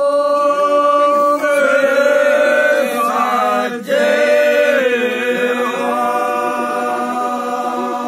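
Men's unaccompanied group singing of a Dogri lambi bhaakh (pa'akh) folk song. Long, drawn-out sung notes step between pitches over a steady low held note, with a short break for breath about four seconds in.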